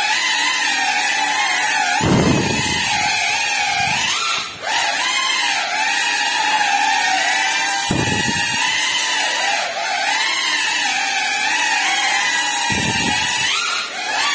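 GEPRC FPV quadcopter's brushless motors and propellers whining, the pitch wavering up and down with the throttle and dipping briefly and climbing again a few times. Three low rushes of air come through along the way.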